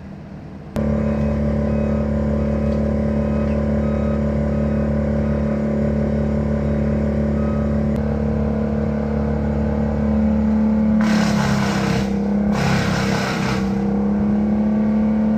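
A two-stroke chainsaw running at high revs. Near the end it makes two short cuts, where a harsh cutting noise rises and the engine pitch dips a little under load.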